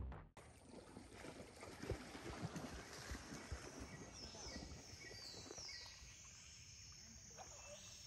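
Faint outdoor ambience on a spring-fed river: soft water sounds with scattered small knocks, and high chirping calls joining in a few seconds in.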